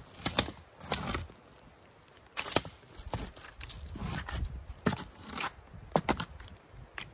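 A long dead branch swung and struck against tree trunks: sharp cracks of wood about five times, with scraping and rustling between. This is raking, imitating a bull elk thrashing a tree as part of elk calling.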